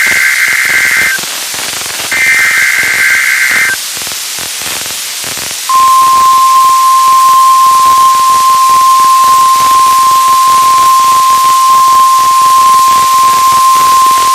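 NOAA Weather Radio Required Weekly Test heard through a weather-radio receiver over steady static hiss. First come the last two bursts of the SAME digital header, a warbling two-tone data squawk about a second and a half each. About two seconds of hiss follow, then the steady 1050 Hz warning alarm tone starts about six seconds in and holds for about nine seconds.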